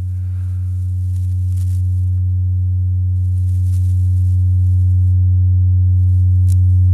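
Bauknecht STG 102 tuning fork modulator, an electro-mechanical oscillator, putting out one steady low tone with faint overtones through the mixer, swelling gradually louder. A faint click near the end.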